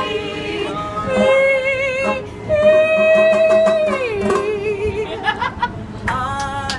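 A woman sings long held notes over banjo accompaniment. The second note slides down in pitch about four seconds in, and sharp plucked strums follow near the end.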